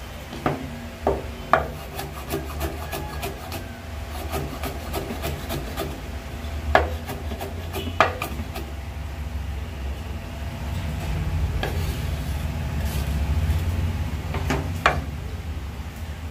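Cleaver chopping garlic on a wooden chopping board: irregular knocks of the blade on the wood, a few of them sharp and loud, with rubbing and scraping between them. A steady low hum runs underneath.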